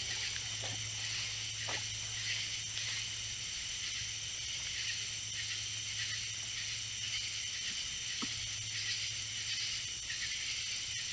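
A steady, slightly pulsing chorus of night insects in summer woods, over a steady low hum, with a few faint ticks.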